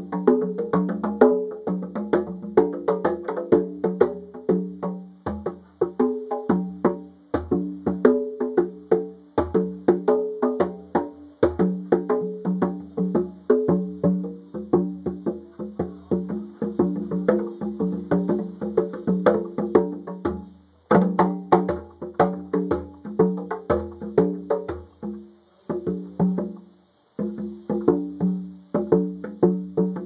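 A pair of conga drums played by hand in a fast, steady rhythm of ringing open tones and sharper slaps, with a short break about two-thirds of the way through. Cicadas buzz faintly and steadily behind the drumming.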